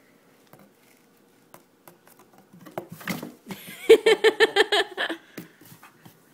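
A high voice giving a quick run of about eight short pitched pulses, loud, about four seconds in, after a few seconds of light scratches and scrapes of a cat moving in a cardboard box.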